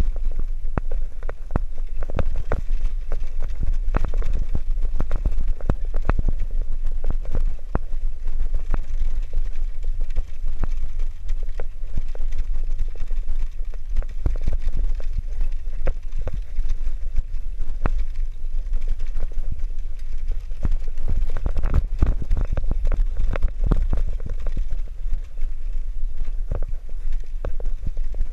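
Bicycle rattling along a rough concrete path, its frame and wire front basket clattering in quick, irregular knocks over a steady low rumble.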